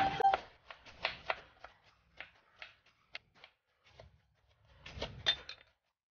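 Kitchen knife chopping a tomato on a wooden cutting board: a run of irregular light taps as the blade meets the board, then a short cluster of louder knocks about five seconds in.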